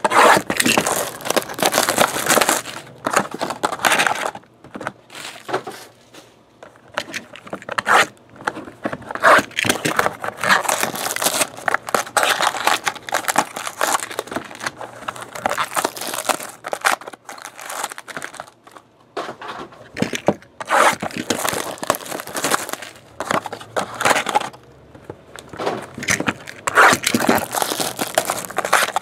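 Clear plastic shrink wrap being torn and crumpled off trading-card boxes by hand, in uneven bursts of crinkling and crackling.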